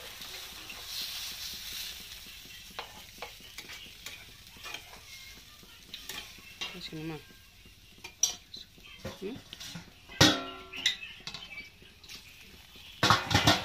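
Fish curry sizzling in a nonstick frying pan, the hiss fading after about two seconds, with a metal spatula tapping and scraping against the pan. The loudest knocks come near the end.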